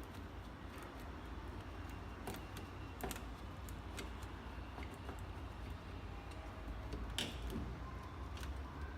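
Scattered small metal clicks and taps, a few seconds apart, as a door lock and handle are worked on by hand to take them apart, over a steady low hum.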